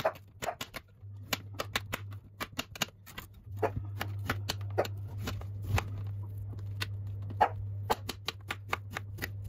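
Chef's knife slicing carrot and then kohlrabi on a glass cutting board: quick, irregular knocks of the blade striking the board, some with a short ring. A steady low hum runs underneath.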